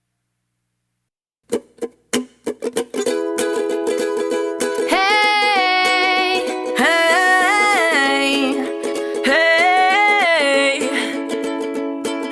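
Music: after a second and a half of silence, a ukulele starts strumming, and about five seconds in a held, sliding melody line comes in over the chords.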